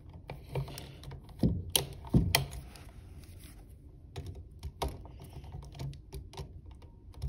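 Scattered small clicks and ticks of handling: stiff copper wire and pliers knocking against a plastic duplex receptacle as the hot wires are bent around its screw terminals. The clicks come at uneven intervals, a few louder ones about two seconds in.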